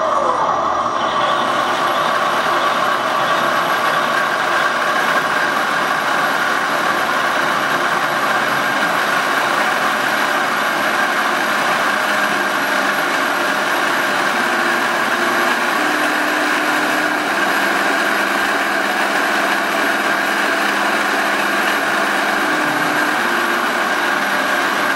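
TK-22 sound module on a Heng Long RC Leopard 2A6 tank playing its simulated Leopard 2 engine sound through the model's small speaker: a steady running engine-and-track noise, with a fainter hum stepping up and down in pitch several times in the second half.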